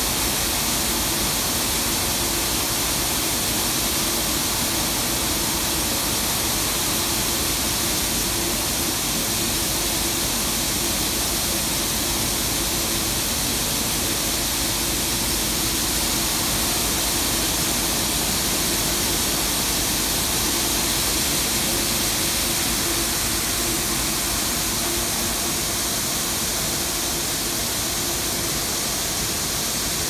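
Paddy rice drying and grain-handling machinery running: a steady, even rush of noise with a low steady hum beneath it.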